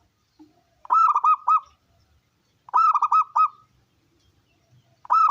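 Zebra dove cooing: three phrases of about four quick, clipped arching notes each, roughly two seconds apart, the third starting near the end.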